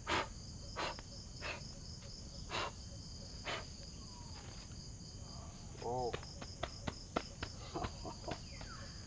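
Forest insects keep up a steady, high-pitched chorus. Over it come brushing and slapping sounds against clothing and skin as ants are knocked off, with quick clicks near the middle and a short vocal sound about six seconds in.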